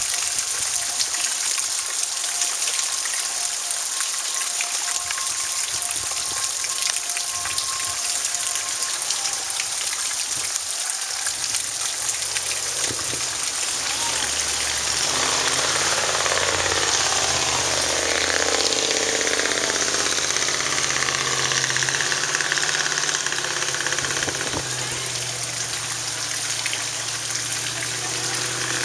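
Hail and rain pelting down steadily, a dense hiss full of tiny clicking impacts. About halfway through, a lower rumble and a wavering, gushing sound join in and the whole grows slightly louder.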